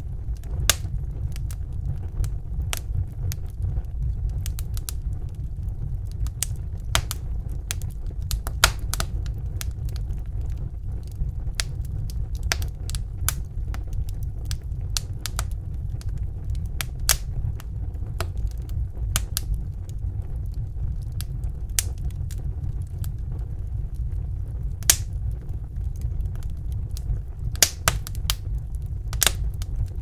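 Wood fire crackling: irregular sharp pops and snaps, some much louder than others, over a steady low rumble.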